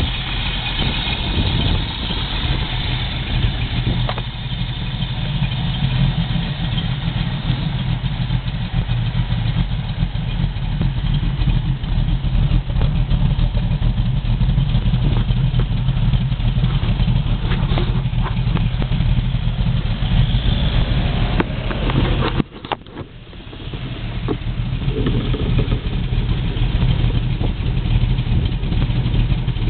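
Rover V8 engine in a Vauxhall Chevette running at idle through a new exhaust, a steady deep burble. About three-quarters of the way through the sound suddenly drops away for a moment, then builds back up to the same steady idle.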